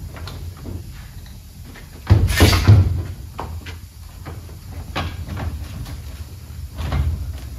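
Steel tool cabinet being handled: a loud sliding clatter about two seconds in, lasting under a second, then a few light knocks.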